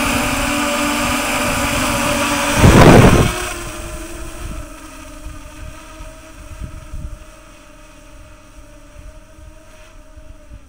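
DJI Phantom 3 Professional quadcopter's propellers buzzing close above a ground microphone, their downwash buffeting it. About three seconds in, a loud gust of rotor wash hits the microphone. Then the buzz drops and fades as the drone climbs away.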